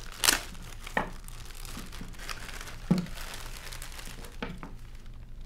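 Clear plastic accessory bag crinkling as it is pulled open and rummaged through, with about four sharper crackles standing out.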